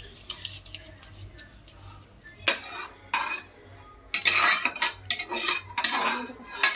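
A metal slotted spoon clatters and scrapes against the inside of an aluminium pressure cooker as whole spices are stirred. It gives a run of sharp knocks that start about two and a half seconds in.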